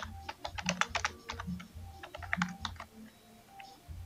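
Typing on a computer keyboard: a quick run of key clicks, with a short lull about three seconds in.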